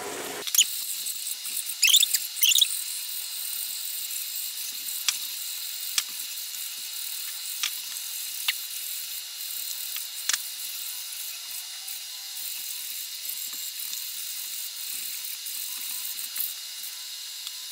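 Metal wire whisk stirring thickening béchamel in a saucepan, with scattered light clicks and a few short squeaks of the wires against the pan over a steady high hiss.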